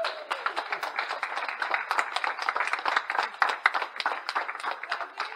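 A group of people clapping and applauding, a dense patter of hand claps throughout, with a short call from a voice near the start.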